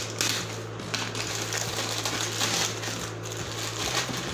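White plastic courier mailer being torn open and pulled apart by hand: a run of quick, scratchy rips and rustles over a steady low hum.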